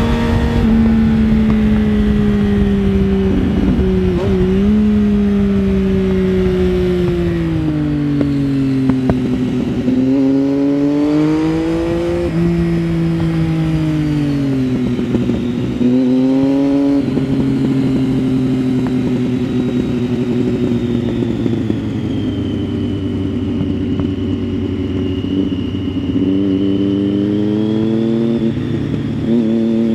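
2009 Triumph Street Triple 675's inline-three engine through an Arrow 3-2 exhaust with dB-killer, heard from the rider's seat while under way. The engine note falls and rises with the throttle through a run of bends, with a sudden jump in pitch about sixteen seconds in. Wind noise sits underneath.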